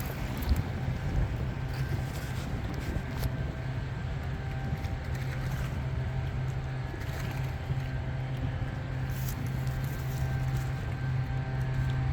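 Steady low engine hum of a vehicle: a constant drone that holds one pitch throughout.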